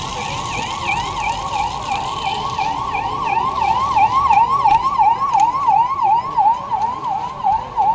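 Emergency vehicle's electronic siren in a fast yelp, its pitch sweeping up and down about three times a second, growing louder about halfway through.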